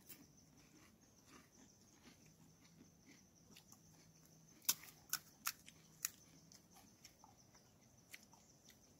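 Near silence, broken about halfway through by four or five short, sharp crunches of crisp panipuri shells.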